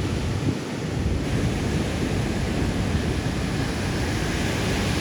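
Wind buffeting the microphone in a steady low rumble, over the wash of ocean surf.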